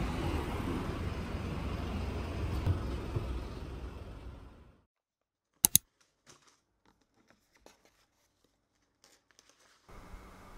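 Street ambience: a steady noisy rumble of passing traffic that fades out just before halfway. Then two sharp clicks and faint rustling and handling sounds of a canvas tote bag.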